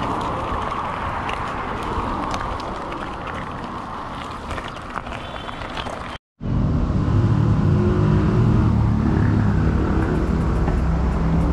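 Mountain bike rolling over a gravel path, heard through a bike-mounted action camera: a steady rush of tyre and wind noise with small crunching clicks. About six seconds in it cuts off dead for a moment, then a louder, steady low rumble takes over.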